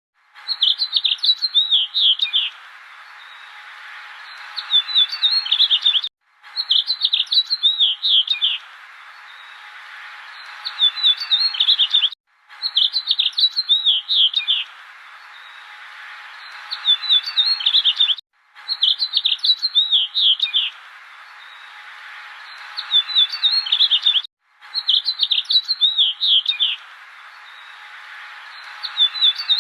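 A small bird chirping quickly and high in bursts of about two seconds. The same six-second recording repeats over and over, with a brief dropout at each join.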